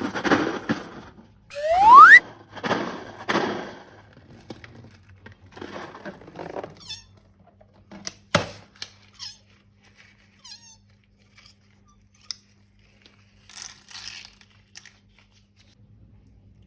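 Rubber balloon squeaking once with a rising pitch as it is squeezed and rubbed, amid rustling, squishing handling sounds. Scattered light clicks follow, with one sharp click about eight seconds in, as the handling tapers off.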